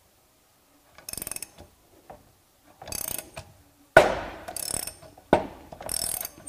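Ratchet wrench clicking in four short bursts as it turns the forcing screw of a Posi-Lock puller, drawing a CVT variator apart against its spring tension. A sharp metallic clunk about four seconds in is the loudest sound.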